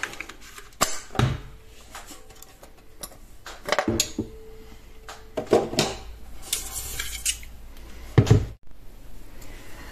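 Clicks, knocks and clatter of a food processor's stainless steel mixing bowl being handled while its blade unit is unlocked and pulled out of the bowl, with a few heavier thumps, the loudest about eight seconds in.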